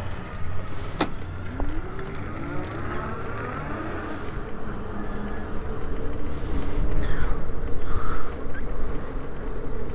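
Road noise from riding in traffic: passing cars over a steady low rumble of wind on the microphone, with a faint rising whine about two seconds in.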